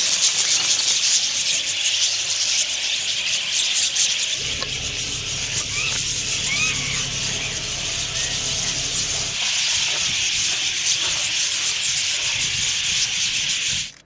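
A large flock of wild budgerigars chattering all at once, a dense, high continuous twittering with a few clearer whistled calls standing out in the middle. It cuts off suddenly at the very end.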